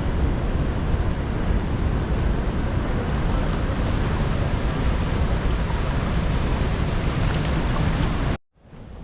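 The Rhine Falls waterfall: a loud, steady rush of falling water, heaviest in the low end, with some wind on the microphone. Near the end the sound cuts out suddenly and then fades back in.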